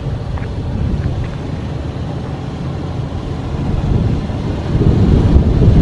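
Toyota 4Runner's V6 engine and tyres rumbling low as it crawls over a rough off-road trail, growing louder near the end.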